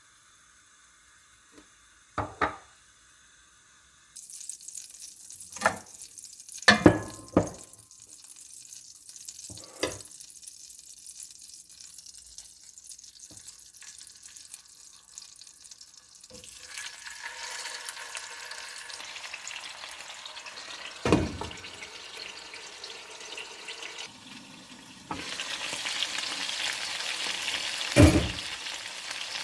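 Food sizzling in hot oil in a pan while being stirred, with several sharp knocks of a utensil against the pan. The sizzle starts about four seconds in and gets louder in two further steps, near the middle and toward the end.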